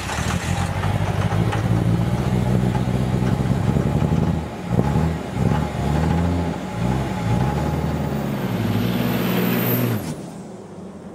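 Dodge diesel pickup's engine running just after starting, its pitch dipping and rising several times around the middle as it is revved, then the sound stops abruptly about ten seconds in.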